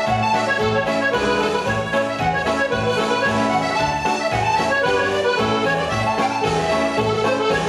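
Accordion-led Scottish country dance music playing a reel, with a steady bass beat about twice a second.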